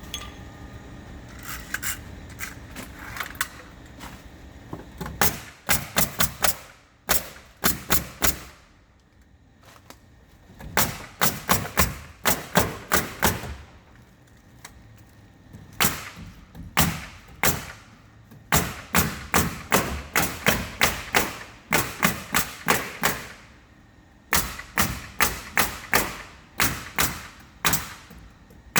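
Nail gun firing in quick runs of sharp shots, about two to three a second, with short pauses between runs.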